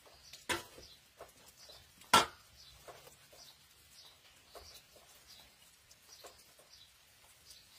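A metal spatula knocking and scraping against a steel cooking pot, with one sharp clank about two seconds in. Small birds chirp repeatedly in the background.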